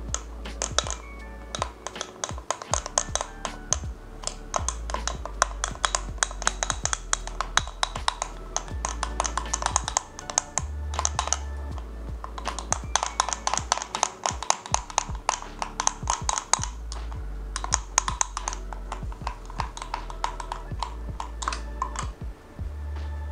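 A long metal bar spoon clinking rapidly against the inside of a small glass jug while stirring cocoa powder into a thick paste with hot water, in runs of quick clicks broken by short pauses. Background music plays underneath.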